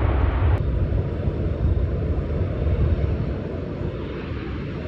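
Jet airliner engines at takeoff power, a deep rumble. About half a second in, the sound cuts abruptly to a duller rumble from another departing jet, which fades slightly.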